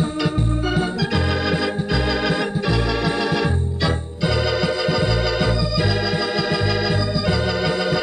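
Thomas electronic home organ playing a tune: sustained chords over bass notes about twice a second, with a brief break about four seconds in. It is heard from a 1970s cassette recording with some wow and flutter.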